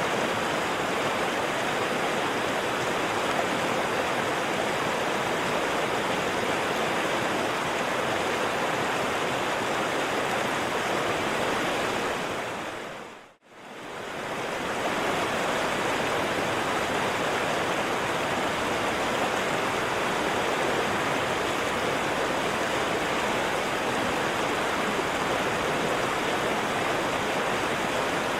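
River water rushing and flowing steadily. About halfway through it fades out to near silence and quickly fades back in.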